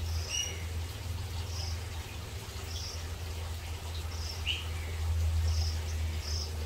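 Birds chirping: short high calls repeating about once every second or so, over a steady low hum.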